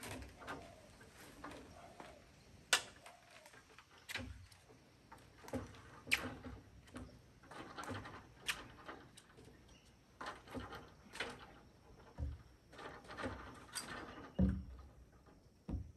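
Irregular knocks, clicks and clunks of tools and timber being handled on a deck frame, with a few dull thumps in the last few seconds. No power tool runs.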